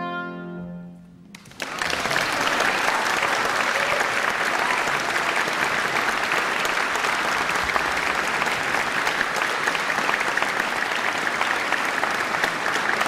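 The last sustained oboe-and-piano note fades out, and about a second and a half in the audience breaks into steady applause that carries on to the end.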